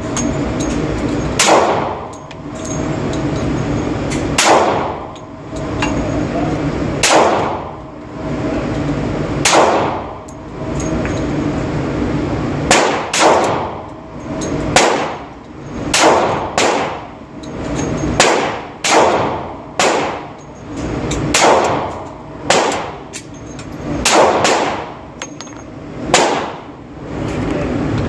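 Glock 20 10mm pistol firing about eighteen shots at an uneven pace, some as quick pairs, each shot a sharp crack with a short ringing tail.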